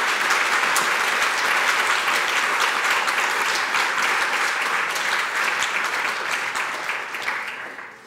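Large audience applauding, the clapping steady and then thinning out and dying away near the end.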